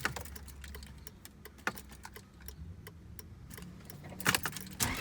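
Car keys jangling and light clicks as the ignition key of a Lexus IS300 is handled and turned, with a cluster of sharper clicks near the end.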